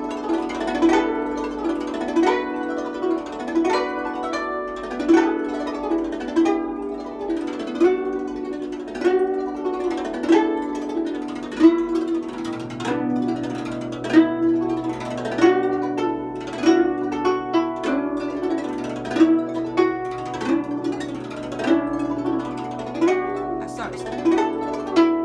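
Guzheng played solo: a continuous melodic passage of plucked notes that ring on, some notes bending in pitch where the left hand presses the strings. A low note sustains under the melody from about halfway through.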